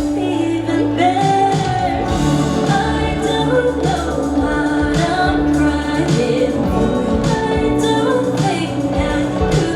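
Live band playing a pop song, with a woman singing the lead vocal over bass and band accompaniment.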